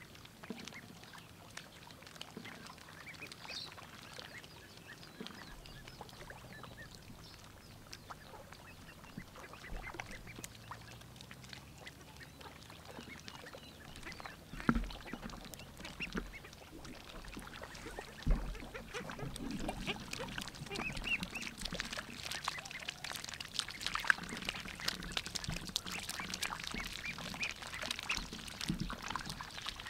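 White ducklings dabbling in shallow muddy water: bills clicking and splashing as they sift for food, with an occasional short duck call. The dabbling grows busier in the second half, and two dull bumps come near the middle.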